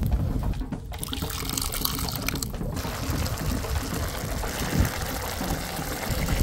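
Water being poured into a pot of cooking rice, a steady pouring sound from about a second in.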